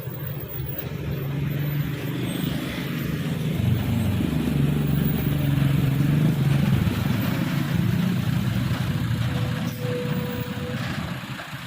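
Heavy vehicle driving past with a low engine rumble that grows louder, peaks around the middle and fades away toward the end.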